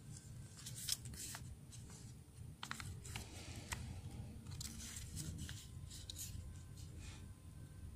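Paper being folded by hand: short crinkles and rustles as the sheet is turned and creases are pressed in, coming in several brief clusters over a faint low room hum.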